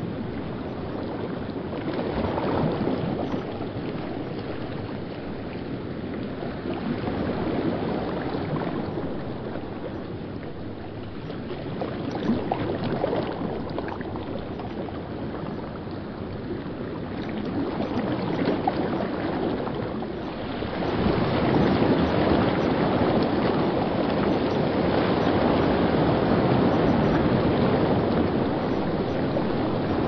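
River water rushing over rocks in whitewater rapids: a steady rushing noise that ebbs and swells, growing louder about two-thirds of the way through.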